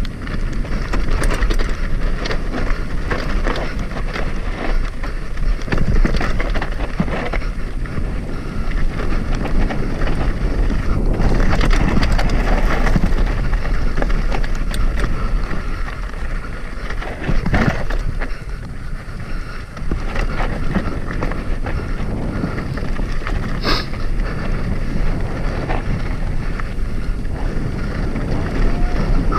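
Upland Vanguard hardtail mountain bike riding over rocky, gravelly trail: continuous crunching and clattering of tyres on rock, with the rigid frame and chain rattling over the bumps and wind buffeting the microphone.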